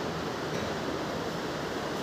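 Steady, even hiss of room background noise, with no distinct sounds standing out.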